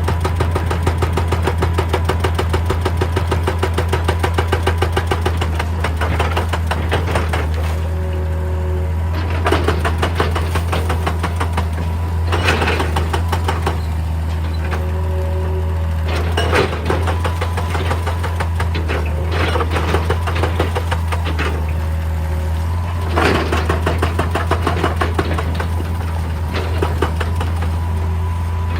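Hydraulic excavator's diesel engine running steadily under load. Louder hydraulic surges come every few seconds as the machine works, some with a brief whine.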